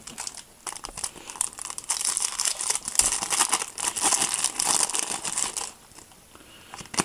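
Foil wrapper of a Match Attax trading-card booster pack crinkling and tearing as it is ripped open by hand: a dense crackle lasting about five seconds that stops about a second before the end.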